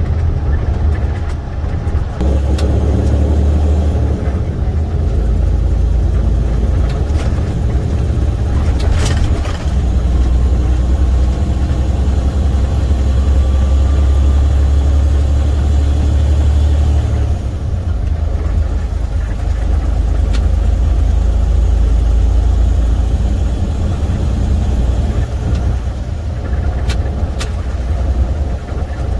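Semi truck's International MaxxForce 13 diesel engine running under way with steady road noise, heard from inside the cab. The low engine rumble eases for a couple of seconds about two-thirds of the way through, then picks up again.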